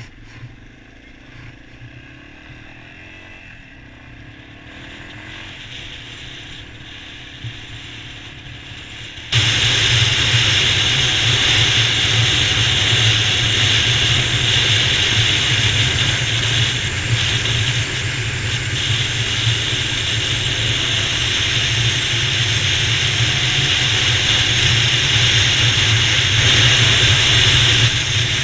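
Dual-sport motorcycle being ridden, a steady mechanical running sound with a low engine drone. About nine seconds in it jumps abruptly much louder and noisier and stays there.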